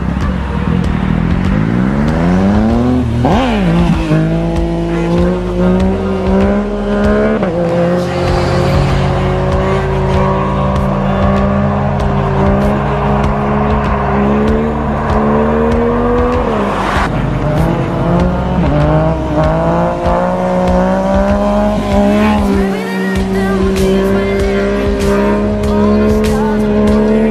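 Yamaha FZ-09 (MT-09) three-cylinder engine held at high, fairly steady revs through long wheelies, its pitch drifting slowly, with quick rev sweeps up and down about three seconds in and again around seventeen and twenty-two seconds as the bike passes.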